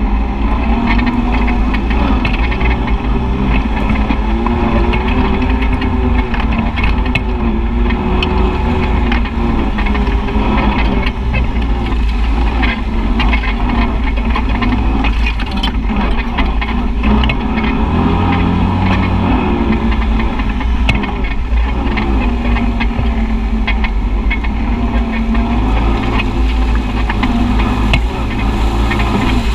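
Side-by-side UTV engine running under way, its pitch rising and falling with the throttle, with scattered knocks from the rough trail.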